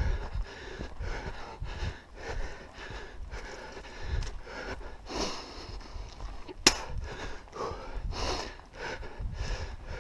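A hiker breathing hard and rhythmically while climbing a steep trail, with footsteps on dirt and a low rumble against the body-worn camera. One sharp click about two-thirds of the way in.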